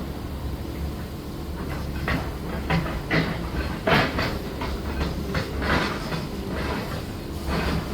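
Heavy demolition machinery running with a steady low rumble, with irregular knocks and crunches of breaking debris; the loudest comes about four seconds in.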